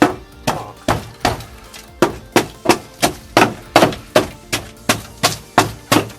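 Hammer blows on metal, struck steadily about three times a second, each blow ringing briefly.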